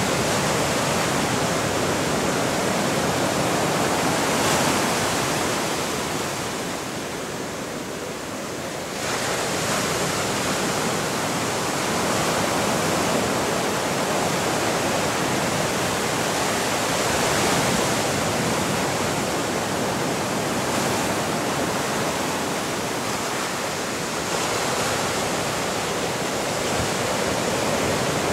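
Ocean surf rushing steadily. It eases into a lull about six seconds in and swells back suddenly about nine seconds in.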